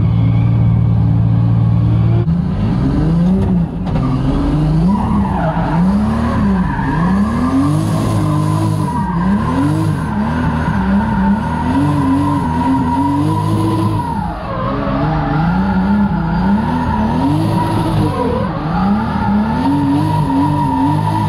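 A drift car's engine holds a steady note for about two seconds, then revs up and down over and over, about once a second, as the throttle is worked through the slide. Over it the tyres squeal steadily, dipping briefly about two-thirds of the way through before picking up again.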